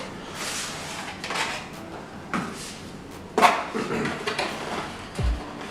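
Packaging being handled as a camera microphone is unboxed: plastic and cardboard rustling in several swishes, with a few sharp clicks and, near the end, low thuds.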